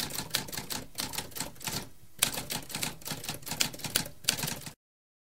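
Typewriter typing sound effect: a quick run of key strikes with a short pause about two seconds in, cutting off abruptly near the end.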